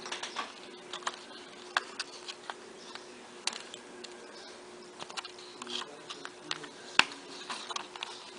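Scattered light clicks and taps from small phone parts and tools being handled during a smartphone screen repair, with one sharper click about seven seconds in, over a faint steady hum.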